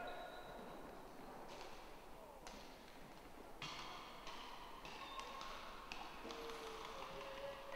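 Faint arena ambience with a low background murmur and scattered short knocks and taps, about eight in all, unevenly spaced.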